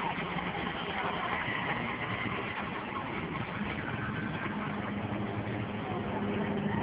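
Motor vehicles of a race convoy, an ambulance and cars, driving past and away in a steady mix of engine and road noise, with a low engine hum from a little over a second in.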